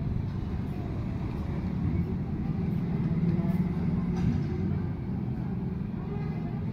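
Steady low rumble that swells a little in the middle.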